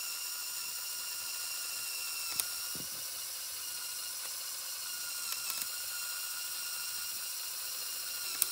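Small LEGO Power Functions electric motor running steadily, driving plastic gears with a high whine, with a few sharp clicks from the mechanism.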